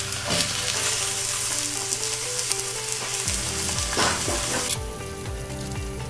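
Lamb shanks sizzling as they go into hot oil in a cast-iron Dutch oven, with a couple of knocks as the meat is set down. The sizzle eases about five seconds in.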